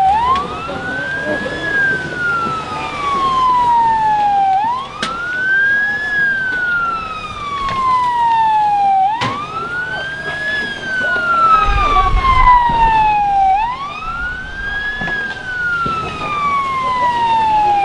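Police siren wailing in slow cycles: each cycle climbs quickly, then slides down slowly, repeating about every four and a half seconds. A faint low rumble is heard about two-thirds of the way through.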